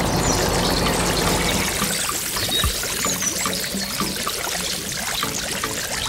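Water pouring from three small pipe culverts under a model bridge and splashing into a shallow muddy pool, a steady trickling splash. A low hum underneath fades out about two seconds in.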